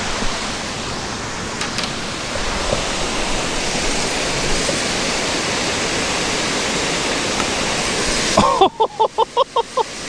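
Steady rushing of a small creek waterfall. About eight and a half seconds in the rushing drops away and a quick run of short voice sounds follows.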